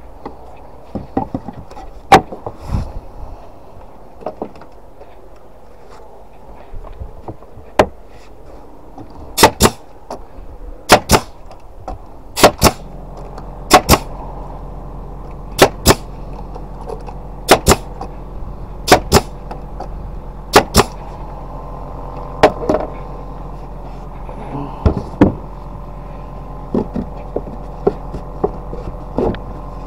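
Cordless nailer firing nails into wooden planter boards: about a dozen sharp shots, mostly in close pairs a fraction of a second apart, every second and a half to two seconds. A steady hum runs underneath from about twelve seconds in.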